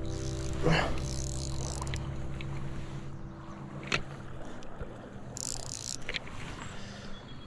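Stream water sloshing around the angler, with a few light knocks and a short splash a little past the middle.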